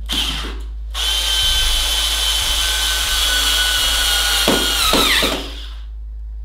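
Bosch IXO 7 cordless screwdriver driving a screw into a wall plug: a short burst of the motor, then a steady whine for about four seconds whose pitch drops near the end as the screw seats, before it stops.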